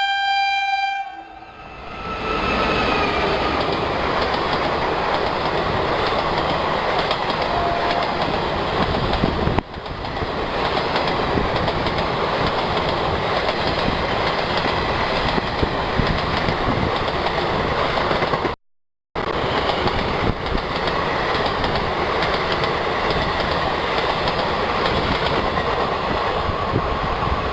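Indian Railways WAP-4 electric locomotive's horn sounding briefly at the start, then the passenger train running past at speed: a steady rumble and clatter of wheels on rail. The sound cuts out for a moment about two-thirds of the way through.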